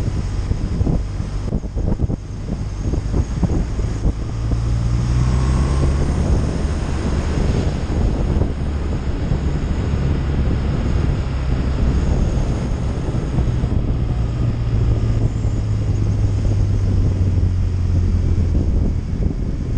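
BMW touring motorcycle's engine running at road speed, with heavy wind noise buffeting the onboard microphone. The engine note gets a little louder about four seconds in and then holds steady.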